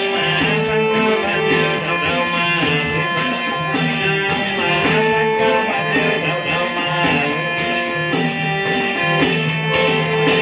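Festive devotional music with a plucked-string melody over a steady beat.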